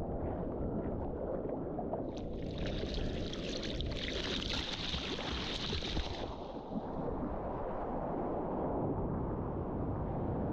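Steady rumbling wind and water noise, with a hissing rush of water that swells from about two seconds in and dies away after about six seconds.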